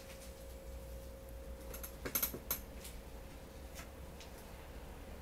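Quiet room tone with a faint steady hum, and a short run of soft clicks about two seconds in.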